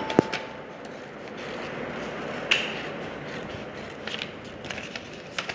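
Scissors snipping through a folded sheet of thin coloured paper, with paper handling. A sharp click just after the start is the loudest sound; another snap comes about two and a half seconds in, and a run of quick light snips near the end.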